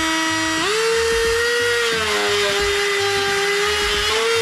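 Black+Decker rotary tool spinning a small abrasive sanding drum against the steel of an excavator blade: a steady high-speed whine that jumps up in pitch about half a second in as the load eases.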